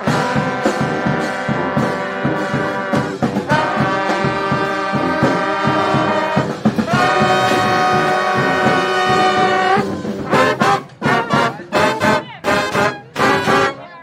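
Street brass band of trombones, trumpets, saxophones and sousaphone playing loudly: three long held chords, then from about ten seconds in a run of short punchy stabs over a steady drum beat.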